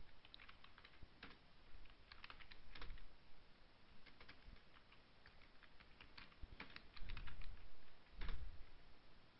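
Typing on a computer keyboard: faint, irregular key clicks in short bursts separated by pauses.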